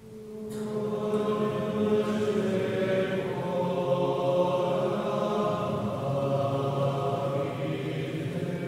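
Male choir singing a slow Latin hymn in sustained, chant-like phrases, fading in over the first second.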